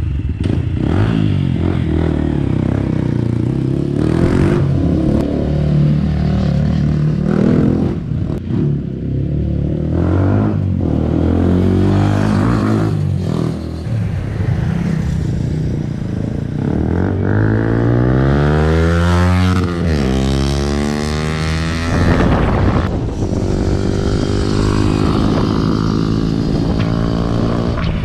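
Yamaha Y16 motorcycle's single-cylinder engine on a test ride, its revs rising and falling with the throttle. About seventeen seconds in it revs up steeply for a few seconds, drops off sharply, then climbs again more gradually.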